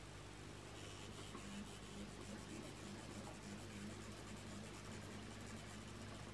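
Hornby R369 class 37 OO gauge model locomotive's motor bogie running slowly along the track: a faint steady hum with a fine, rapid rattle of gears, sounding like a tractor. It is running less smoothly than hoped, and the owner notes a gear running very close to the back of the pinion.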